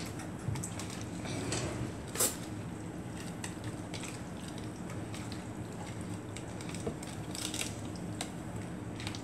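Hands squishing raw chicken livers mixed with garlic and Kool-Aid in a plastic tub: soft wet squelches and small clicks over a steady low hum, with one sharper tap about two seconds in.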